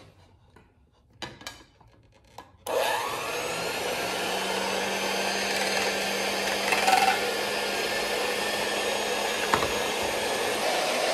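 Hamilton Beach Bowl Rest electric hand mixer whipping egg whites in a bowl. A few light handling clicks, then about three seconds in the motor switches on, spins up, and runs steadily with the beaters churning.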